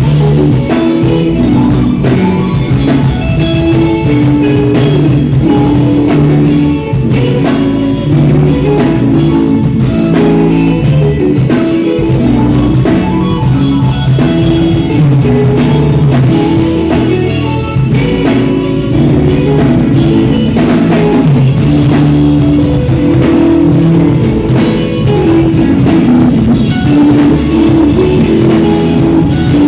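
Live instrumental math rock band playing: intricate picked electric guitar lines over bass and a drum kit, with the drums coming in right at the start.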